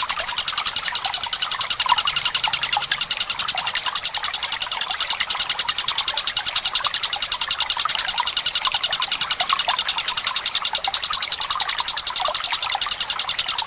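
Tengkek buto (a kingfisher kept by Indonesian bird-fanciers) giving a long, fast, even rolling trill that runs without a break. Trickling water goes on underneath it.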